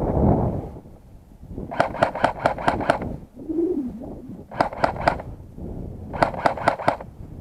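Three quick bursts of airsoft rifle fire, each a run of five to eight sharp cracks at about six shots a second, after a brief rush of noise at the start.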